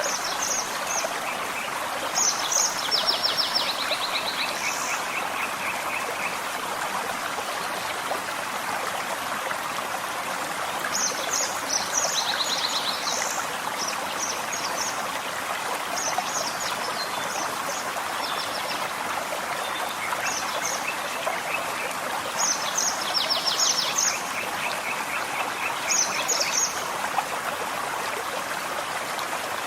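Forest stream running steadily. A songbird sings over it several times, each phrase a run of short high notes followed by rapid trills.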